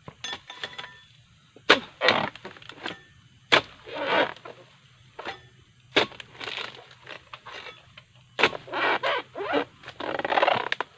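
A pole-mounted chisel blade chopping into the fibrous bases of oil palm fronds. There are about four sharp strikes a couple of seconds apart, each followed by a rasping, tearing rustle.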